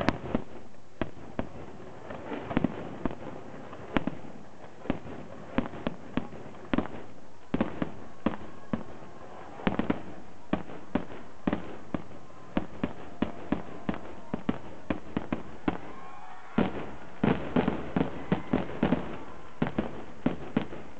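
Aerial firework shells bursting one after another in an irregular string of bangs. A quicker, denser run of bursts comes in the last few seconds.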